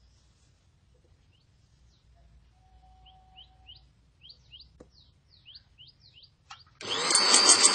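Faint, quick rising bird chirps in the background, repeated many times. About seven seconds in, a sewing machine starts stitching: a loud, fast, even clatter with a rising whine as it gets up to speed.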